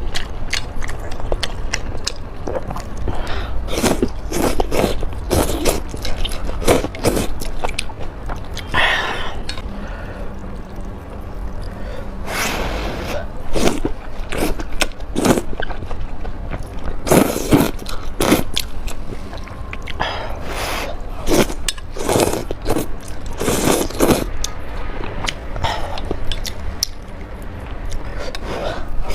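Close-miked eating of spicy noodles and dumplings: chewing and biting, heard as a run of short clicks broken by a few longer noisy stretches.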